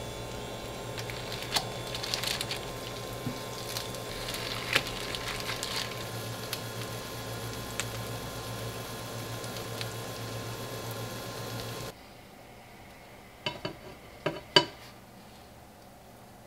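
Butter sizzling in a ceramic frying pan on an induction cooktop as egg-soaked bread fries, over a steady low hum, with scattered crackles and small taps. About twelve seconds in the sizzle cuts off and a few sharp clinks of crockery follow.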